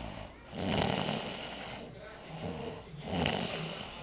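A woman snoring: two loud snores, about a second in and again about three seconds in, with a quieter pitched breath between them.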